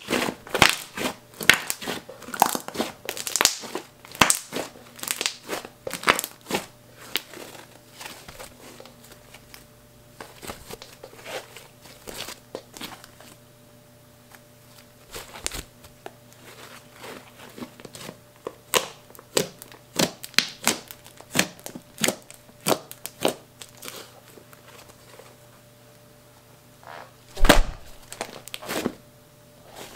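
Fluffy slime being squeezed, stretched and folded by hand: quick runs of sticky clicks, crackles and pops, sparser in the middle, with one louder pop near the end.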